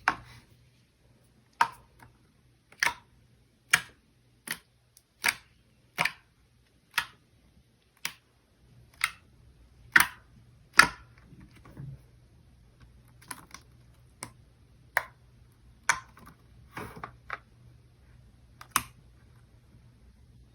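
Lotion slime being pressed and squished by hand, giving off sharp popping clicks about once a second at an uneven pace as air pockets burst.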